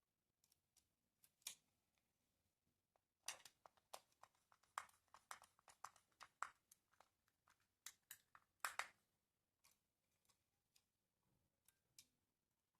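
Faint clicks and small handling noises, like hard parts being handled. They come in a busy cluster from about a quarter of the way in to about two-thirds, with a few scattered clicks before and after.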